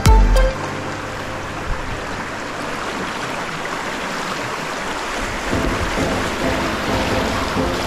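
Background music stops just after the start, leaving a steady rush of moving water. Faint music comes back in over the water about two-thirds of the way through.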